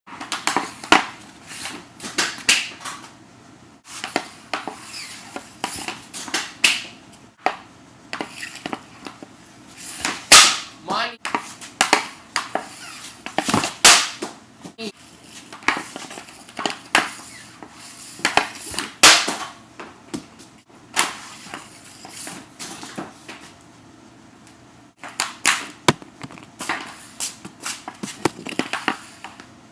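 Ice hockey shots with a Vapor X60 stick in a small room: a long, irregular series of sharp clacks as the stick blade slaps pucks and the pucks strike their targets, some shots coming in quick pairs.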